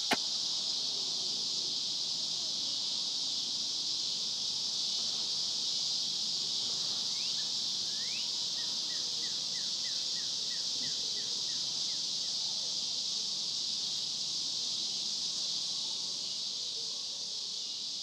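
Steady high insect chorus, like crickets, in a summer field. About halfway through, a bird gives a quick run of about ten short notes.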